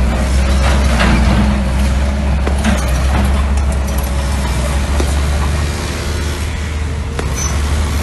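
Mini bulldozer's diesel engine running steadily under load, with a few sharp clanks and scrapes from the machine at work.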